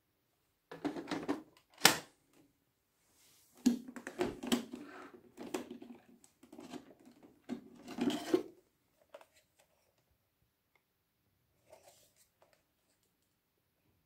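Hard plastic clicks and rattles of Roomba robot-vacuum parts being handled, with one sharp snap about two seconds in; a longer run of clatter as the Roomba 980's dust bin is gripped and pulled out, stopping about halfway through.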